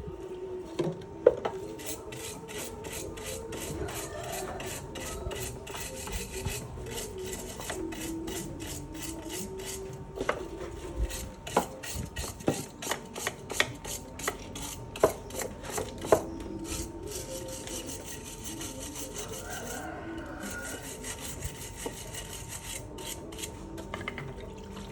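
Quick, repeated back-and-forth scraping strokes of hand work on a part, with a few sharp knocks in between and a pause of about a second near the end.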